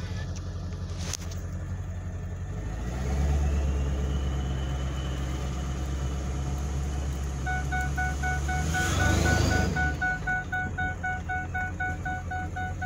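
Car engine pulling under acceleration with a rising turbocharger whistle, ending in a brief whoosh about nine seconds in as the throttle lifts. From about halfway, a dashboard warning chime beeps rapidly and steadily.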